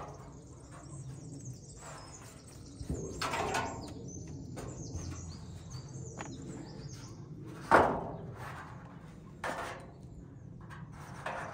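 Birds chirping in the background, with a few separate thuds; the loudest comes about eight seconds in.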